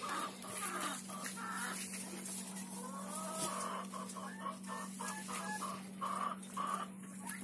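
Domestic hens clucking in a run of short calls, with a few light knocks among them.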